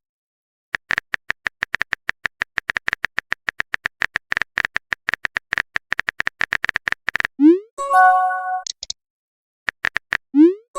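Typing sound effect: a rapid run of keyboard clicks for about six and a half seconds. Then comes a short rising pop and a chiming message notification tone, which sounds again about three seconds later.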